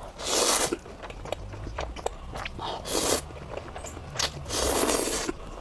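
A person slurping noodles in three long slurps, with small wet chewing clicks between them.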